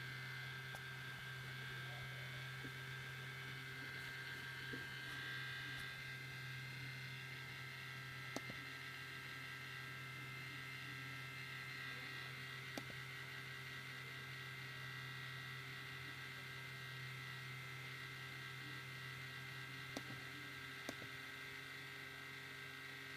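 MacBook Pro giving off a strange loud, steady buzzing hum with a higher whine over it, while the computer is doing nothing processor-intensive; its cause is unknown. A few faint clicks occur near the middle and towards the end.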